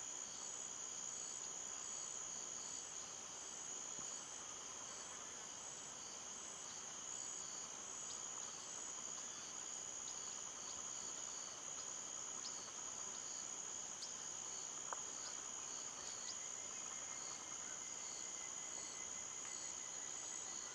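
Steady chorus of insects, crickets among them: a continuous shrill trill with a fainter pulsing chirp beneath it.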